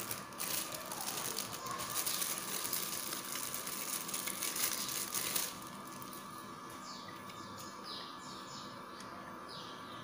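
Plastic packaging crinkling and rustling as the humidifier's parts are handled and unwrapped, stopping about five and a half seconds in. After that a faint steady hum remains, with several faint short falling chirps.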